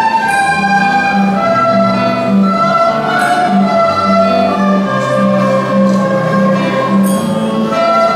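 School recorder ensemble playing a slow melody in long held notes over a bass line of repeated notes, about two a second.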